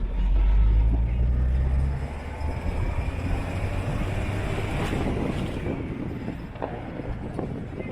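Street traffic heard from the road: a vehicle engine's deep drone for about the first two seconds, then a rushing road noise that gradually fades.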